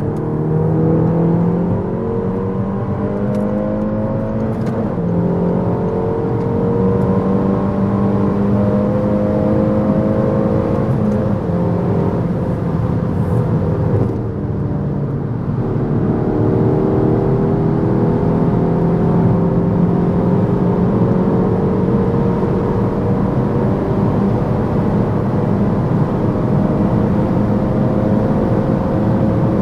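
Peugeot 308 GTi's turbocharged 1.6-litre four-cylinder pulling hard at high speed, its note climbing slowly for about twelve seconds. About halfway through there is a brief drop, as with an upshift or a lift, and then it climbs slowly again, over steady wind and road noise.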